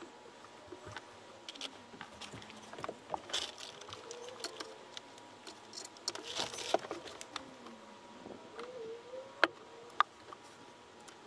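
Hand tools and wire being handled at car-audio amplifier terminals: scattered small clicks and rustling from wire cutters or strippers and a screwdriver, with two sharp clicks near the end.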